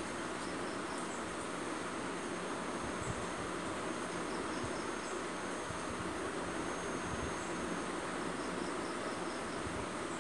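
Faint high chirping in short quick groups every few seconds, typical of crickets or other insects, over a steady background hiss.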